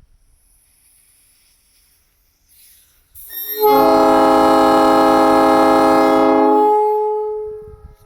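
Nathan P3 three-chime air train horn blown once, sounding a steady chord for about three seconds starting about three seconds in. It then cuts off, and its echo trails on for about a second.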